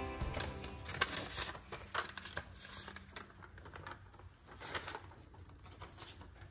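Paper rustling and crinkling as a folded letter is handled and unfolded, in light, irregular crackles.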